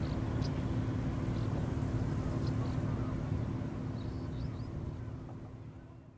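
Steady low drone of ship engines from the tug and car carrier, with a few faint bird chirps; it fades out near the end.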